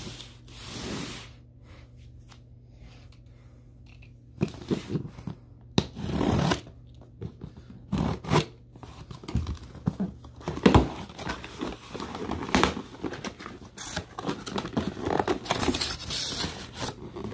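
A corrugated cardboard shipping box being opened by hand, with tearing, scraping and rustling of cardboard and tape and bumps as it is handled. It is fairly quiet for the first few seconds, then busy from about four seconds in.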